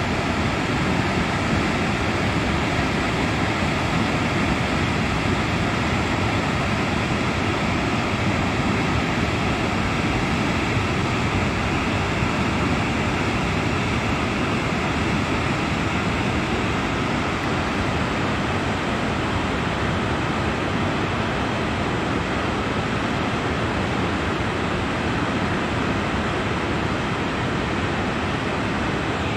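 Glacial lake outburst flood: muddy water and debris rushing past in a steady, unbroken rushing noise.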